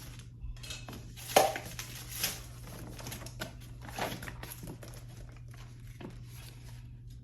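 Plastic cups and packaging being handled: crinkling and rustling with light knocks and clatters, the sharpest about a second and a half in.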